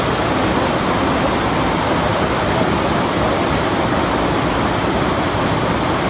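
Loud, steady rushing of a river in flood, its churning water filling the sound.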